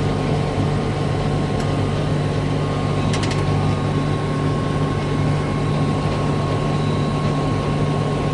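Combine harvester running steadily while harvesting wheat, a constant mechanical drone with a steady low hum, and a brief run of clicks about three seconds in.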